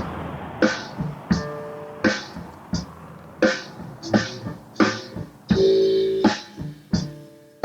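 Background music with a steady beat, about three beats every two seconds.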